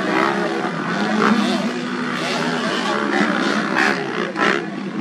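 Several motocross bikes racing, their engines revving up and down with pitches that rise, fall and overlap, one holding a steady note for a couple of seconds in the middle.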